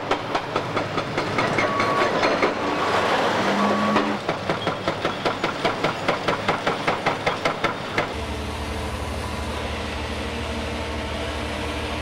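Heavy demolition machinery at work: crunching and grinding of debris, then a run of even knocks about four a second. About eight seconds in this gives way to the steady drone of a diesel excavator engine.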